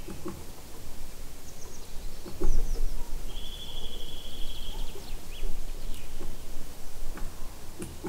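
Songbirds singing in woodland: a few short high chirps, then one fast, even trill lasting about a second near the middle, over a low rumbling noise.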